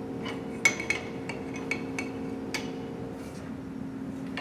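Metal wrenches clinking against an automotive A/C line fitting as it is worked loose and re-threaded: a run of sharp clicks and clinks in the first two and a half seconds, then only faint ones. A steady low hum runs underneath.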